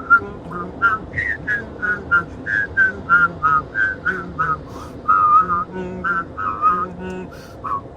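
Whistling of a trombone melody in short, detached notes, a few held longer, with a low hummed voice line underneath taking the bass trombone part.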